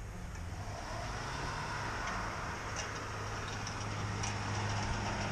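Vehicle engine running and getting steadily louder as the vehicle struggles to climb through deep snow.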